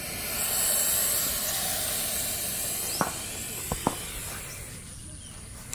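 Indian rock python hissing in one long breath, swelling in the first second and fading out about five seconds in. Three sharp clicks sound about midway.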